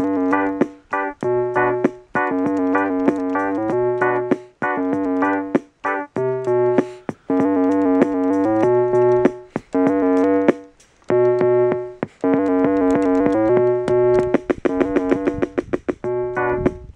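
Small vintage portable electronic keyboard playing a short repeating riff over a steady bass note, with quick clicks in a steady beat. The playing stops and starts again several times.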